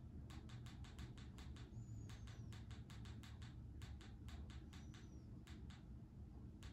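Faint runs of TV remote button clicks, about six a second, with short pauses between runs.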